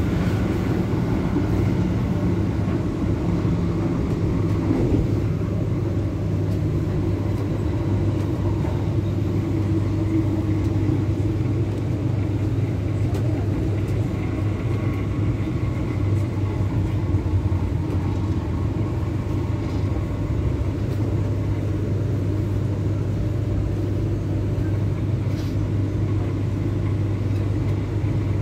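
Steady running rumble and low hum inside a moving MTR K-Train electric multiple-unit car. It stays even throughout, with a second, higher hum that fades away about six seconds in.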